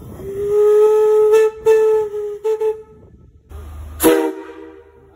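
Locomotive steam whistle blown on compressed air. One long blast with a few brief dips as the valve is worked, then a short, sharp toot about four seconds in, with several tones sounding together.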